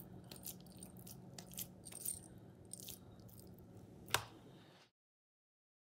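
Hands pressing and rolling raw ground beef into a patty: faint, wet squishing with small scattered clicks. There is a sharper tap about four seconds in as the patty meets the wooden cutting board. The sound then cuts out abruptly.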